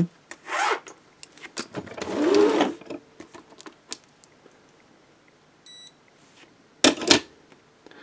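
Steel handcuffs clinking and rattling as they are handled, then a short electronic beep from a WEDO Porto-Fix digital postal scale a little past halfway. Near the end there is a sharp clunk as the handcuffs are set down on the scale's platform to be weighed.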